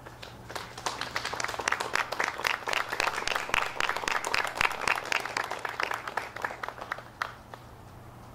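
Audience applauding, the clapping starting about half a second in, thinning out and dying away about seven seconds in.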